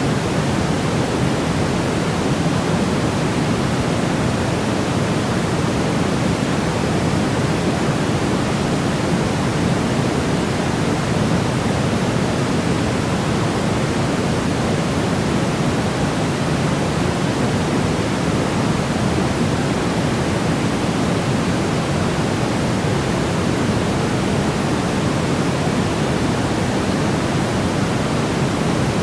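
Steady generated white noise for infant sleep: an even, unbroken hiss weighted toward the low range, so it sounds deeper than true white noise, like pink noise. It does not change at all.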